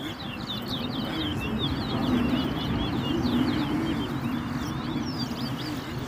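Caged towa-towa songbirds singing a fast run of short chirping notes, over a low steady background rumble.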